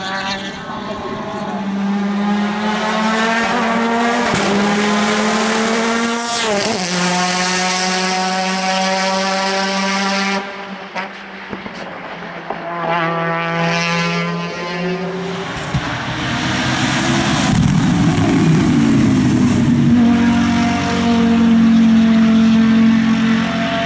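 Touring race cars accelerating hard at full throttle, their engines revving up and dropping back at each upshift. There is an abrupt change about ten seconds in, after which another car climbs through its gears.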